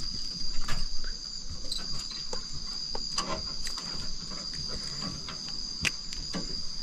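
Steady high-pitched trilling of night insects, with a few scattered light knocks and handling clicks over it.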